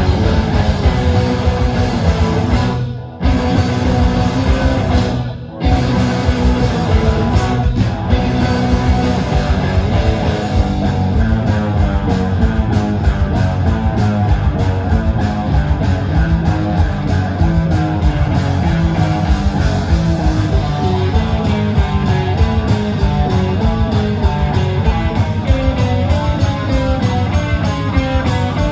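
Live rock band playing instrumental rock on electric guitars, bass and drum kit, stopping together twice for a moment in the first few seconds. From about eight seconds in it drives into a fast, even beat, with quick runs of notes climbing and falling.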